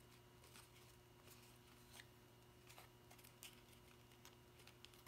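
Near silence with faint, scattered ticks and crinkles of cardstock paper being handled as paper tabs are worked through a slot by hand.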